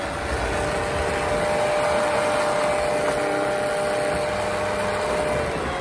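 3660 brushless motor of an RC snowblower spinning its impeller, a steady high whine over a rough rushing rumble, easing slightly near the end.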